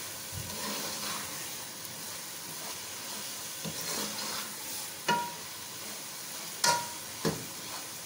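Pumpkin halwa frying in oil in a metal pot with a steady sizzle, stirred with a metal spoon that scrapes through the thick mixture. The spoon clinks sharply against the pot three times in the second half. The halwa is being cooked down until the oil separates.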